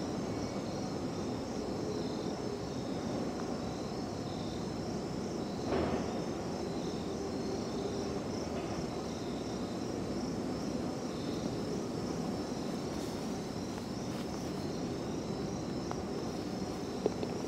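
Insects chirping in a steady, repeating pulse over a low, steady background rumble. There is a brief dull knock about six seconds in and a single sharp click near the end.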